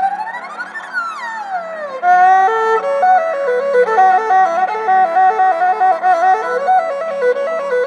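Khmer two-string bowed fiddle (tro) playing a traditional melody. In the first two seconds it makes one long slide up in pitch and back down. It then plays a quick run of stepping notes, with a lower line of notes moving beneath.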